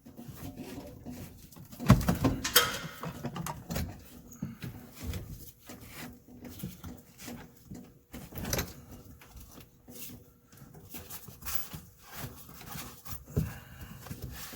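Irregular knocks, scrapes and rubbing of hand work on the rubber sleeper boot joining a Peterbilt 379's cab to its sleeper. The loudest knock comes about two seconds in, with others around the middle and near the end.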